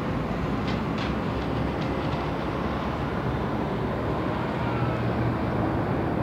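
GE ES44DC diesel locomotives and freight cars rolling slowly past, a steady rumble with a low engine hum. There are two sharp clicks about a second in.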